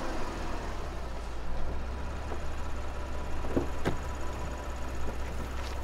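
Car engine idling at the curb, a steady low hum, with a few short clicks about three and a half to four seconds in and again near the end.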